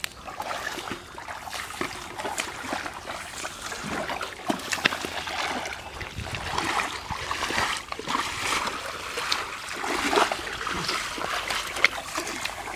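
Shallow muddy water splashing and trickling as people wade through it and scoop up mud by hand. Small irregular splashes follow one another closely.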